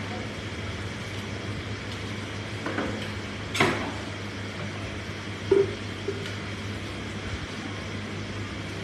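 Steady background room noise with a constant low hum, broken by a few brief knocks and clicks, the sharpest about three and a half seconds in.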